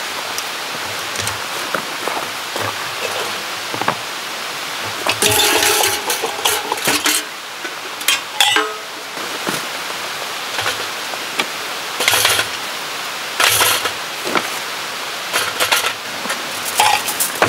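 Metal camp-cooking gear, including a charcoal chimney starter, clinking and clattering in several short bursts as it is handled and set down, over a steady outdoor hiss.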